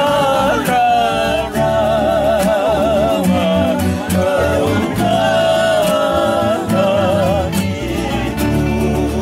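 Fijian sigidrigi song: men singing with a wavering vibrato over a strummed acoustic guitar.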